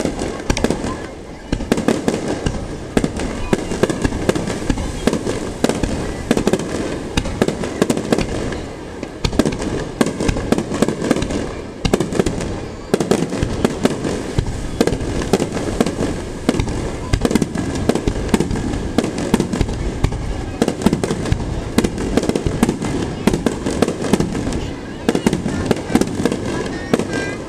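Aerial firework shells bursting in quick succession: a dense, almost continuous run of sharp bangs and crackles with only brief let-ups.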